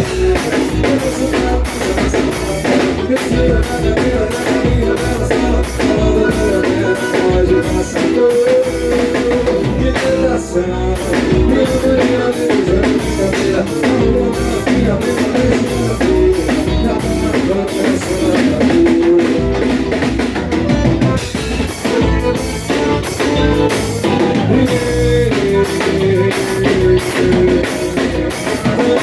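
Loud band music with a drum kit beat under a melody line.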